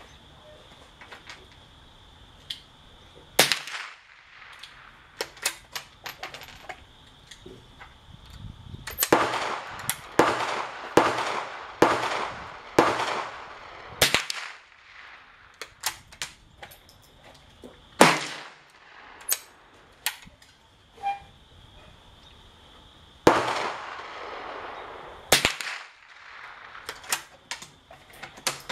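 .22 rimfire firearm firing many shots at an uneven pace, some singly and some in quick runs of two to four about half a second apart, with pauses of a few seconds between runs. Each sharp crack trails off in a short echo.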